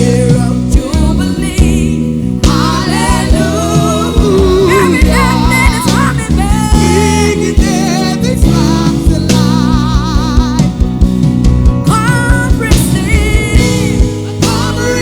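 Gospel worship music played live by a church worship band, with a singer holding long wavering notes over the instruments.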